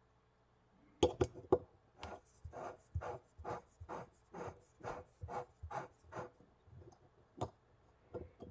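A small metal camp stove being worked by hand, its metal parts scraping in a run of evenly spaced strokes, about two or three a second. A few clicks come about a second in, and a single sharper click comes near the end. The part is proving stiff to work.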